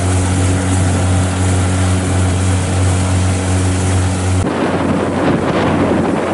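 A small boat's motor running steadily under way, with the rush of wind and water as the boat moves. About four and a half seconds in, the steady engine note drops away and a rougher rush of water and wind takes over.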